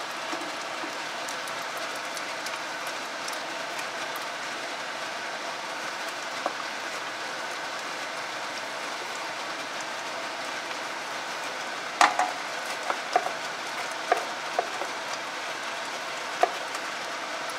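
A spatula knocking and scraping against a bowl, several sharp clicks in the last few seconds, as mashed sweet potato is scraped into a pot of gravy. Under them runs a steady background hiss.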